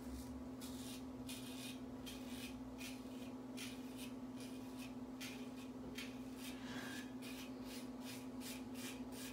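Single-edge safety razor scraping through five days of lathered stubble on the neck in many short strokes, a few a second, with brief pauses between runs. A steady low hum sits underneath.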